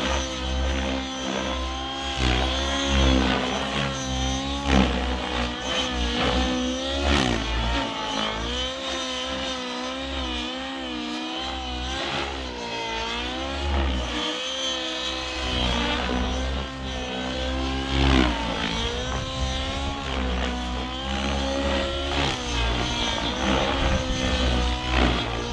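The OS 91HZ-R two-stroke nitro engine and Rotortech 700 rotor blades of a SAB Goblin Raw Nitro RC helicopter in aerobatic flight. The engine note wavers up and down continually as the blades' load changes through the manoeuvres.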